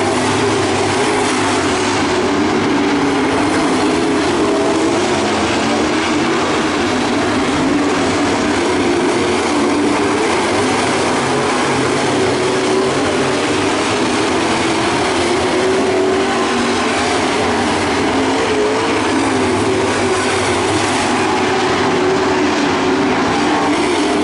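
Dirt-track Pro Stock race cars' V8 engines running around the track together, a loud continuous roar whose pitch wavers up and down as the cars accelerate and lift through the turns.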